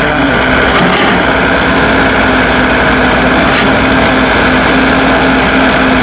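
Kobelco SK045 mini excavator's diesel engine running steadily, with a steady hum and two light clicks, about a second in and about three and a half seconds in.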